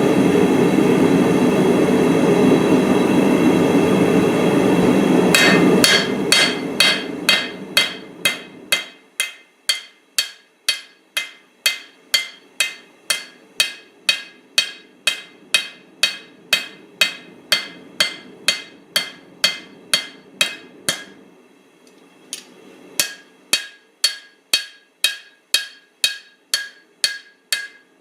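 Hand hammer striking steel on an anvil while forging a cleaver, about two blows a second with a bright ring after each, pausing briefly near the end before the blows resume. A steady roar at the start fades out as the hammering begins.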